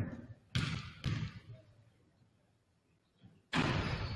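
Basketball bounced on a hardwood gym floor, three thuds about half a second apart, as the shooter dribbles before a free throw. After a pause, near the end, there is a louder thud that rings on in the hall.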